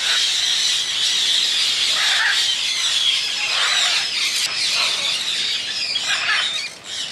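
Many caged exotic birds calling and squawking at once in a loud, dense, high-pitched chorus, easing off near the end.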